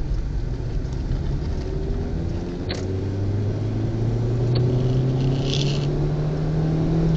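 Car engine and road rumble heard from inside the cabin. About two and a half seconds in, the engine note starts to rise steadily as the car picks up speed.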